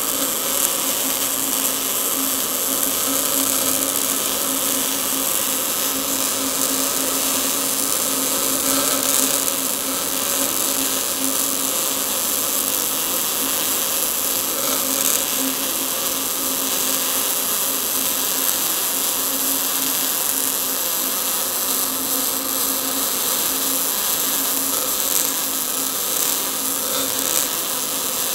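MIG welding arc from an Everlast Cyclone 200e burning continuously on an open-root pipe weld, with no break in the arc. A steady hum runs under it.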